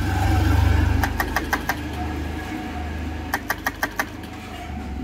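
Starter motor cranking a KTM 390 Adventure's 373 cc single-cylinder engine, which does not fire, with two quick runs of sharp clicks. The engine won't start because the battery is low, at about 11 volts.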